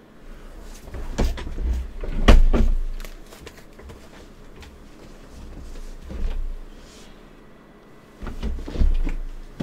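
Several dull thumps and knocks from a person shifting about at a desk, grouped at one to three seconds in, once about six seconds in, and twice near the end, with faint breathy noise between them.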